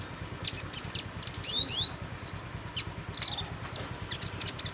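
Songbird giving a rapid, irregular string of short, high chirps and twitters, some sliding down in pitch, over a faint low hum.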